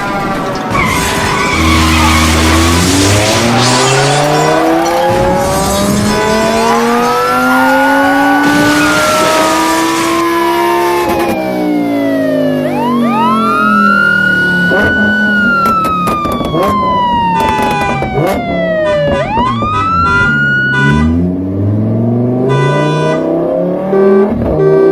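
A car engine revving, climbing in pitch over several seconds and dropping back as if shifting gears. Over it a siren-like wail glides up, holds and falls slowly, two or three times.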